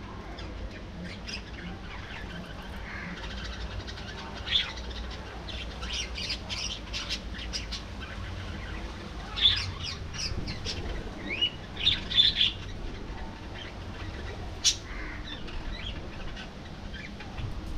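A flock of budgerigars chattering, with runs of short chirps and a few louder squawks standing out.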